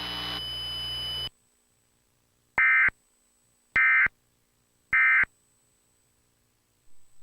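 EAS end-of-message data tones: three short, identical buzzy digital bursts about 1.2 seconds apart, marking the close of a relayed blizzard warning. Before them, a steady hum from the relayed broadcast cuts off abruptly about a second in.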